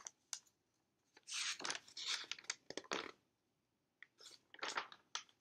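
Pages of a large picture book being handled and turned: a stretch of paper rustling about a second in, then a shorter one near the end, with a couple of light clicks at the start.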